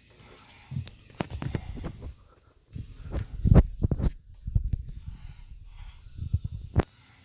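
An irregular run of low thumps and sharp clicks in clusters, the loudest about halfway through and a last sharp one near the end.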